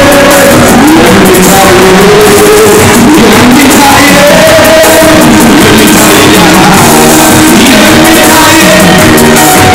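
Live Amharic worship song: singers on microphones through the church sound system over piano and band accompaniment, loud throughout.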